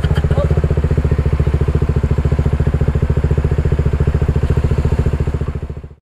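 Motorcycle engine idling with an even, rapid pulsing beat, fading out near the end.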